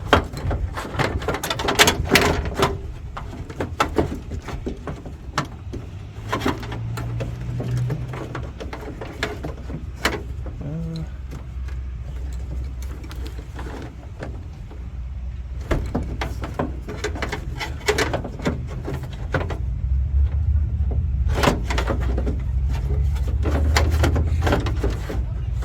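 Scattered clicks, knocks and rattles of a door lock actuator and its linkage being worked around inside a car door's metal shell, over a steady low hum.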